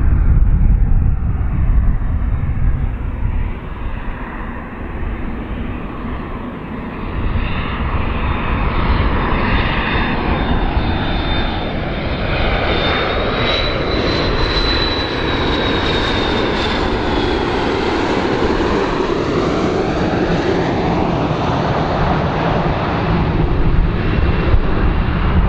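McDonnell Douglas MD-80-series jet airliner on landing approach, its rear-mounted turbofan engines running with a steady rumble. A thin high whine climbs a little in pitch as the plane nears, peaks about midway, then drops away as it passes.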